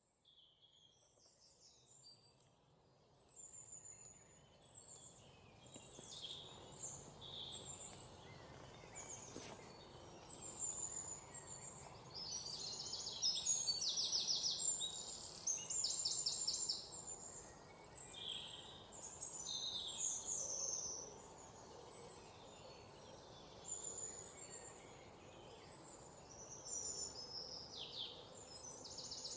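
Several songbirds chirping and trilling, with many short high calls and a few rapid trills of repeated notes, over a soft steady background hiss. The sound fades up from near silence over the first few seconds.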